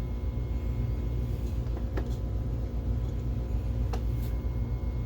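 Optoma HD26 DLP projector running just after power-up: a steady low hum from its cooling fan with the faint whir of a newly replaced color wheel, running quietly.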